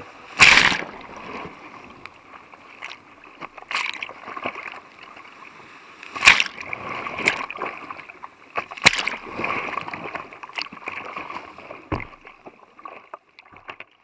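White water rushing around a kayak, with water splashing against the boat-mounted camera and hull; sharp, loud splashes come about half a second in, around 6 and 9 seconds, and near 12 seconds. The sound dies away near the end.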